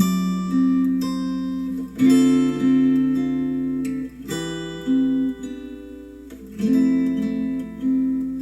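Acoustic guitar music played back through Adam Audio A3X powered studio monitors: strummed chords left to ring and fade, a new chord every second or two.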